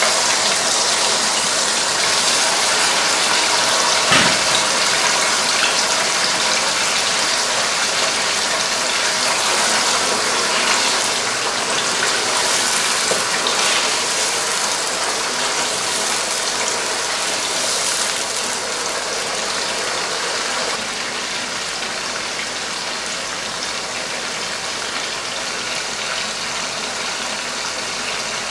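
Chicken pieces sizzling and bubbling in hot oil in a karahi, a steady crackling hiss that eases slightly toward the end. A single sharp knock comes about four seconds in.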